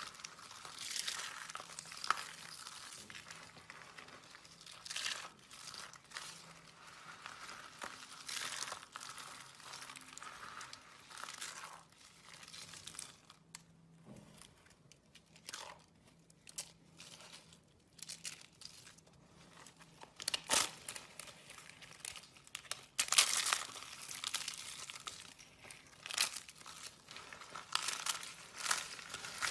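Dry soap curls and shavings being crushed and crumbled by hand, crackling and crunching irregularly, with a quieter stretch about halfway through and the loudest crunches about two-thirds of the way in.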